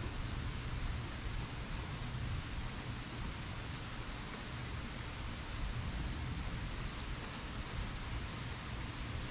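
Rain falling steadily, an even hiss, with a low rumble underneath.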